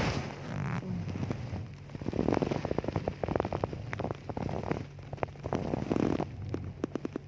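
A woman snoring in her sleep: rattling snores, one with each breath every few seconds, over a steady low hum.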